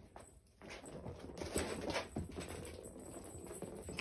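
Kittens scampering and tussling on a tile floor: a run of light, irregular pattering and scuffling that starts about half a second in.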